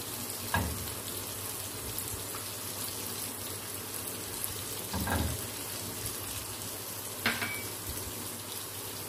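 Oil sizzling steadily in a wok of fried onion, tomato and masala over a gas flame, with three short, light knocks: about half a second in, about five seconds in, and about seven seconds in.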